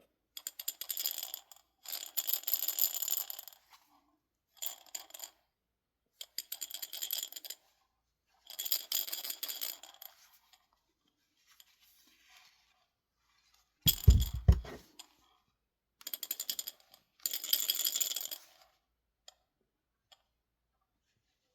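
Vintage 1980s Playskool monkey rattle toy shaken in about eight separate bursts of bright, jingly rattling, each a second or two long. A loud thump comes about two-thirds of the way through.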